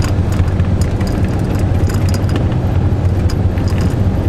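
Inside the cab of a 2002 Iveco Daily van on the move: a steady low drone of engine and road noise, with small clicks and rattles scattered over it.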